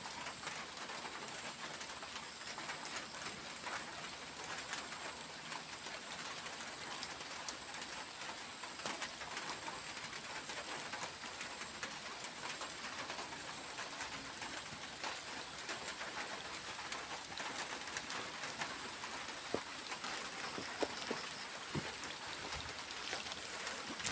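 Steady outdoor ambience: a continuous high-pitched drone with scattered faint ticks, and a few soft knocks near the end.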